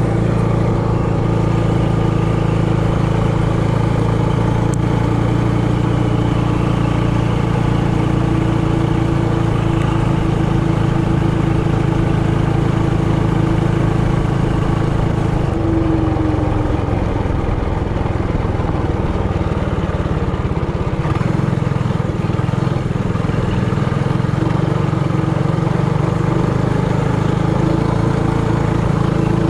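Trailmaster Hurricane 200X mini bike's single-cylinder engine running steadily under way. Its note dips slightly about halfway through, then holds steady again.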